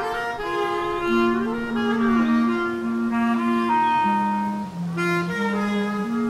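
Bass clarinets playing together in long, overlapping notes. A low held note steps down twice about four seconds in and climbs back near the end, while a higher line moves above it.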